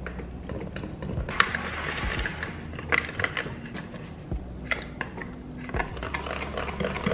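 Wire whisk stirring rice-flour batter in a plastic bucket: irregular clicks and knocks of the wires against the bucket's sides, with the swish of the batter in between.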